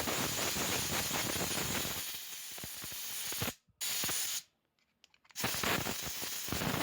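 Compressed air blowing out freshly petrol-washed bearings of a belt tensioner pulley: a long blast of air, a short burst about four seconds in, and another blast starting about a second later.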